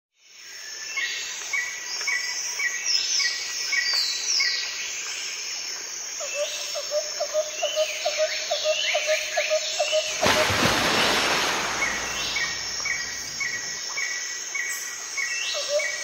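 Several birds singing together in a dawn chorus: short slurred whistles and a high note repeated about three times a second, joined from about six seconds in by a lower call repeating at a similar pace. About ten seconds in, a rush of noise swells up over the birdsong and fades again.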